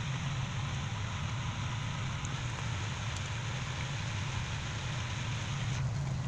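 Chicken and sauce cooking in a pot, giving a steady sizzling hiss over a low steady hum; the hiss drops away near the end.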